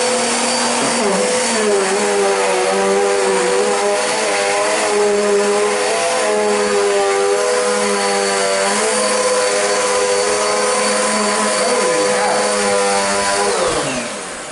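VAX U85 PC Be upright bagless vacuum cleaner running on carpet: a loud motor hum and whine whose pitch wavers as it is pushed about. Near the end it is switched off and winds down.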